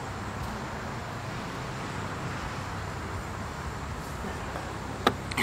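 Steady low rumble of road traffic, with two sharp clicks near the end.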